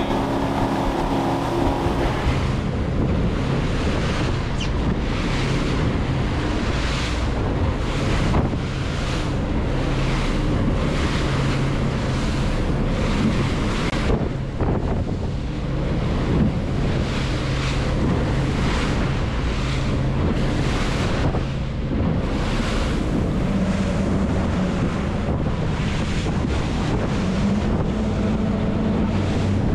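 A center-console boat running fast on three outboard motors: a steady low engine drone under the rush of water and spray, with gusty wind buffeting the microphone throughout.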